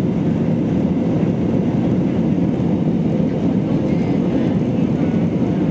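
Steady low cabin noise inside an Airbus A320-232 climbing after takeoff: the drone of its IAE V2500 turbofan engines mixed with air rushing past the fuselage, even in level throughout.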